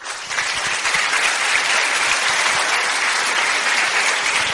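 Audience applauding: dense, steady clapping that breaks out all at once and holds.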